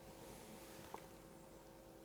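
Near silence: faint room tone with a low steady hum and a single small click about a second in.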